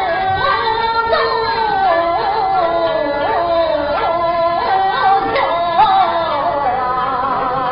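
A singer in a Huaiju (Huai opera) aria, holding a long melodic line on one drawn-out vowel with wavering, ornamented turns and upward swoops.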